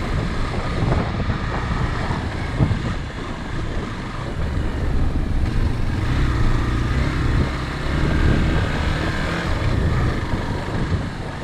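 Motorcycle engine running with a steady low rumble, which grows somewhat heavier in the second half.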